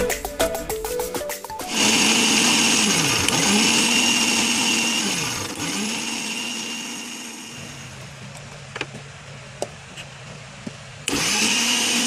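Electric mixer grinder with a steel jar running, grinding guava leaves into a wet paste. Its whine dips and comes back up about once a second. It falls to a quieter, lower hum about halfway through and comes back loud near the end.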